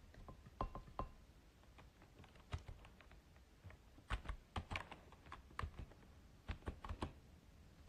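Typing on a computer keyboard: irregular, quick key clicks, some in short runs, others single.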